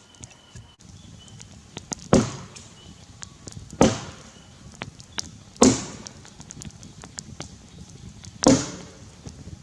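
Tasmanian-pattern felling axe chopping into a grey gum log: four heavy strikes, the gaps between them uneven, the last one after a longer pause.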